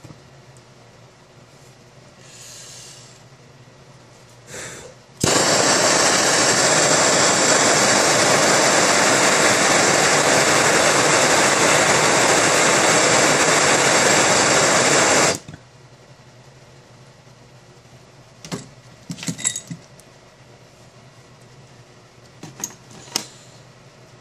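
Butane torch flame hissing steadily as it heats the nail of a glass dab rig, starting abruptly and cutting off about ten seconds later. A few light clicks follow near the end.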